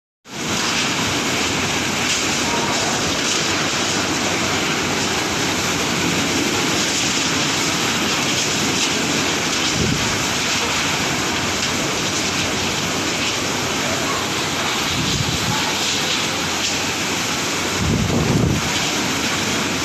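Typhoon wind and heavy rain: a steady rushing noise of wind-driven rain, with gusts buffeting the microphone about halfway through, again a few seconds later, and most strongly near the end.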